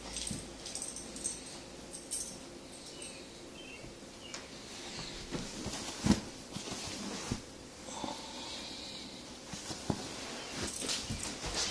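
A large dog shifting about on a padded mat, with snuffling nasal breaths and scattered soft knocks; the loudest knock comes about six seconds in.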